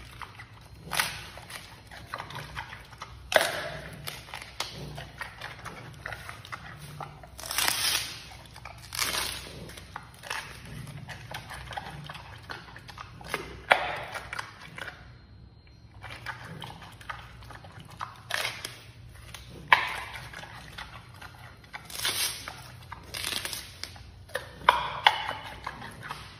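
Giant panda biting and chewing a bamboo shoot. There are about a dozen crisp crunches and snaps of the fibrous shoot, irregularly every second or few, with quieter chewing between them.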